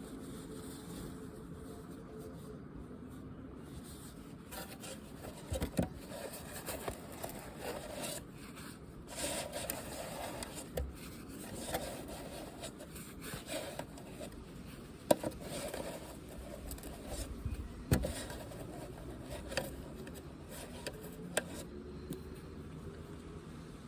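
Rubbing and scraping of a bird feeder being cleaned out by hand, broken by a few sharp knocks, two of them louder than the rest in the second half.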